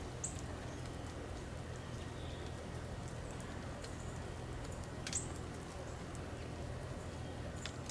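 Quiet outdoor ambience: a steady low hum with three brief, sharp high ticks, the clearest about five seconds in.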